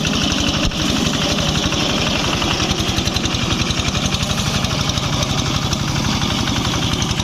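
Small engine of a grass-cutting machine running steadily with an even, rapid pulse, with a single click about a second in.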